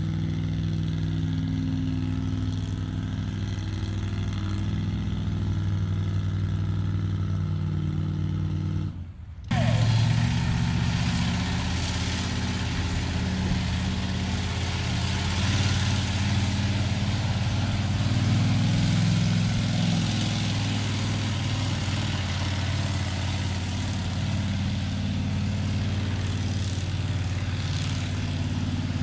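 Pulling vehicle's engine running steadily. The sound cuts out briefly about nine seconds in, then comes back louder with more rushing noise over the engine.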